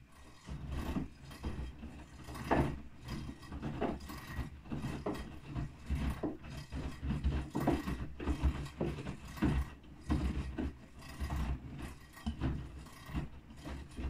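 Bosch front-loading washing machine in its wash cycle: the drum starts turning about half a second in and tumbles wet, sudsy laundry, with an irregular run of low rumbling and knocks.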